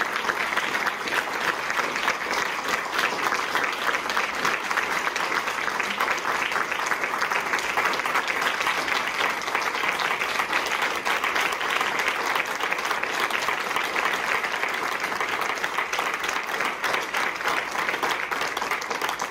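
A group of people applauding, a steady patter of many hands clapping.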